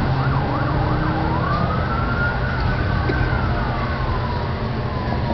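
Emergency vehicle siren: a fast yelp in the first second or so, then a slow wail that rises and falls once, over a steady low rumble of road traffic.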